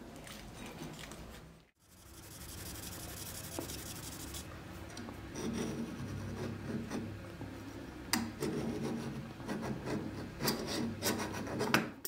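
Hand tools working a steel knife blank: a few file strokes, then repeated scraping and rubbing strokes of a small bladed tool along the blank, with a few sharp clicks. A brief high hiss comes early on.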